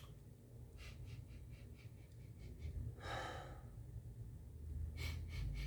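A person sniffs once, about halfway through, smelling a circuit board for a burning smell, with a few faint small clicks before and after it.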